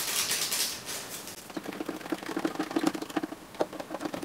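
Sugar pouring from a paper sachet into water in a plastic jug, a short hiss, then a metal spoon stirring the jug with a quick run of clicks and taps against the plastic.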